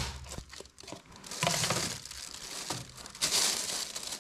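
Thin plastic carrier bag crinkling and rustling as a takeaway plastic bowl of noodles is lifted out of it, in two spells about a second and a half in and just past three seconds.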